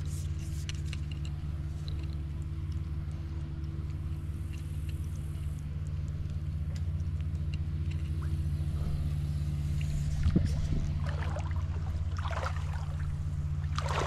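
A steady low mechanical hum made of several fixed, evenly spaced tones, with scattered faint clicks and a brief knock about ten seconds in.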